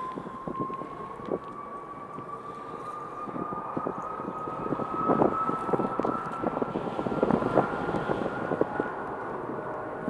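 Jet airliner engine whine, a single tone rising slowly in pitch, with gusts of wind buffeting the microphone.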